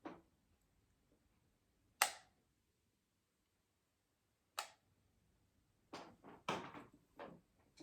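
A few sharp clacks about two and a half seconds apart, then a quick run of clicks and rustles near the end, from an adjustable hair waver's plates being clamped shut and opened on a section of hair.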